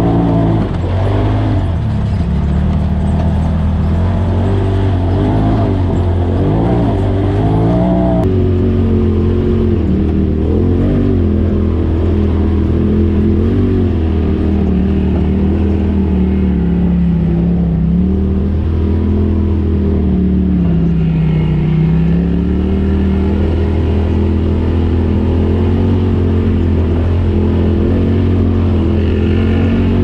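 Polaris RZR side-by-side engine running under throttle, heard from the cab, its pitch rising and falling as the throttle is worked. About eight seconds in, the sound cuts abruptly to a second RZR's engine, which runs on with slower swells in pitch.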